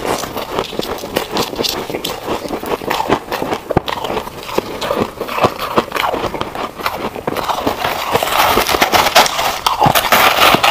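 Ice being chewed, a rapid run of crisp crunches. From about eight seconds in, a louder, denser crunching scrape as gloved hands dig through crushed frost ice in a plastic tray.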